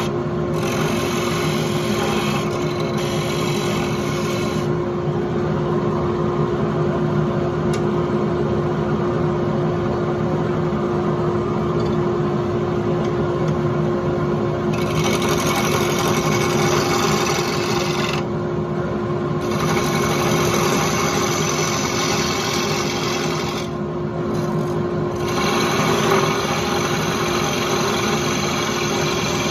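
Wood lathe running with a steady motor hum while a turning tool cuts a spinning wooden spindle: a rough scraping hiss of the cut that stops and starts again several times as the tool is lifted and brought back to the wood.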